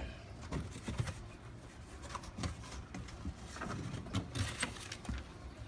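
Cardboard shipping box and packing being handled and cut open: irregular rustles, scrapes and light knocks, with firmer knocks about a second in and again about four seconds in.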